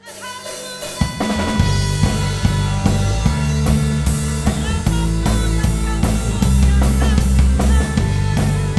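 A praise-and-worship song played on drum kit and bass guitar over sustained chords. The music swells in over the first second, then kick, snare and rimshot hits settle into a steady groove with a bass line underneath.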